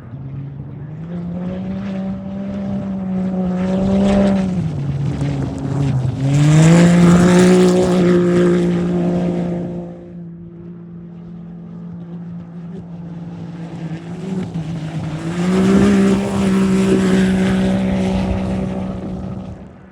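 Racing UTV engines running at full throttle as they pass, each holding a steady high pitch. The loudest pass comes about six to ten seconds in and a second around fifteen to nineteen seconds.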